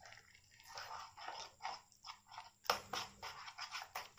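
Whisk beating thin gram-flour batter in a bowl: quick rhythmic wet strokes, about four a second, with one sharper knock against the bowl near the middle.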